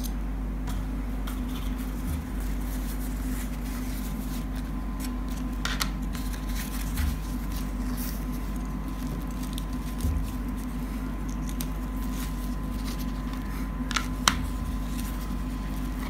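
Small objects being handled on a cloth-covered table: paper cards and printed cloth rustling, with a few small clicks from a plastic CD jewel case. A steady hum runs underneath.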